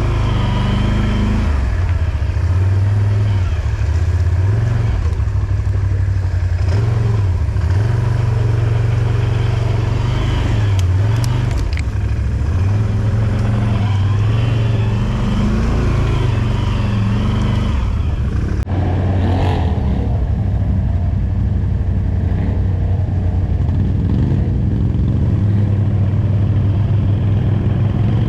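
ATV engine running while riding off-road, its revs rising and falling repeatedly, with a few brief clatters about eleven seconds in.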